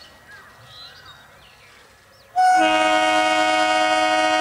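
Electric local train's horn giving one long, steady blast that starts suddenly about halfway through, several tones sounding together. Faint bird chirps are heard before it.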